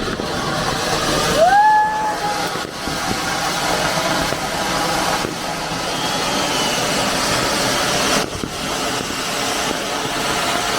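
Anar fountain firework spraying sparks with a loud, steady hiss. A whistle rises in pitch about a second and a half in, and a fainter whistle comes about six seconds in.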